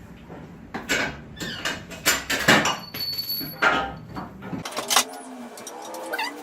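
Metal clanks, knocks and scrapes as an engine and transmission are lifted out of a car with an engine crane (cherry picker). The low background rumble cuts off about two-thirds of the way through.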